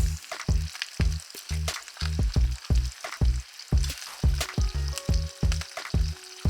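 Oil sizzling and crackling in a skillet as food fries, over background music with a steady, rhythmic bass line.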